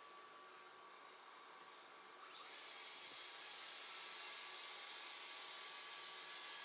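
Festool plunge-cut track saw starting up about two seconds in and running steadily with a high whine as it rips a plywood strip along its guide rail.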